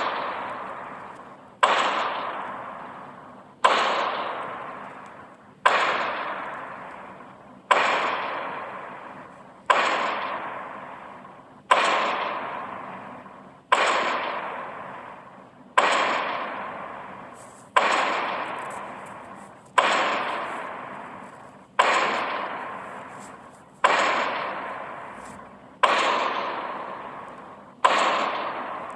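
Heavy dinosaur footstep sound effect for a walking T-Rex: one sudden stomp every two seconds, each fading away slowly with an echo until the next.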